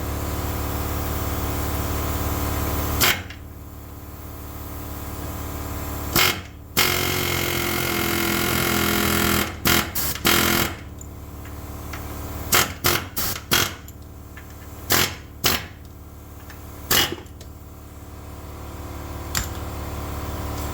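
Air hammer fitted with a punch bit driving out a worn lower ball joint: one longer run of hammering and then many short, sharp bursts. A steady mechanical drone runs under the first three seconds.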